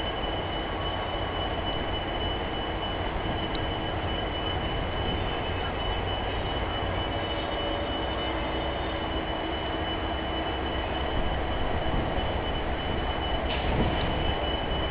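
WDP4 diesel-electric locomotive, with a 16-cylinder two-stroke EMD engine, working as it starts a passenger train moving: a steady drone with a steady high whine above it. The noise grows a little louder in the last few seconds, with a sharp clank about thirteen seconds in.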